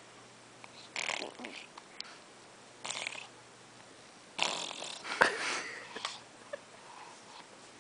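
A series of short, breathy sniffing noises: a few separate sniffs, the longest about four and a half seconds in, with a sharp click in the middle of it.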